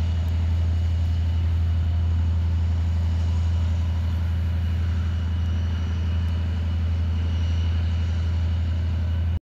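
Steady low drone of a TE10-series diesel locomotive's 10D100 two-stroke opposed-piston engines running; it cuts off suddenly near the end.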